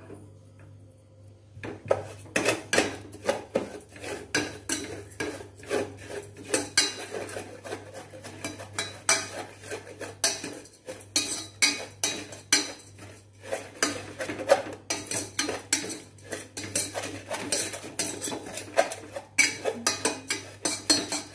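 A metal spoon stirring dry sugar in a stainless-steel pot, scraping and clinking against the pot in quick, irregular strokes that start about two seconds in. The sugar is being melted without water to make caramel.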